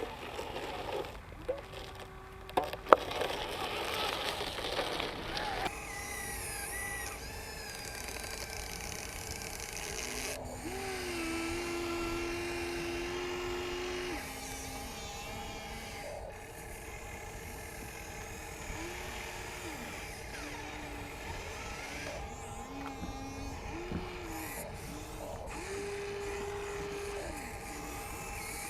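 Whine of an RC excavator's small electric motors, its pitch stepping up and down as the machine moves. For the first six seconds there is noisy rattling with sharp knocks, the loudest about three seconds in.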